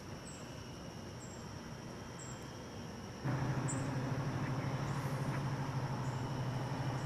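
Quiet outdoor background with a few faint, short high chirps. About three seconds in, a steady low hum of fixed pitch starts abruptly and carries on, the loudest sound here.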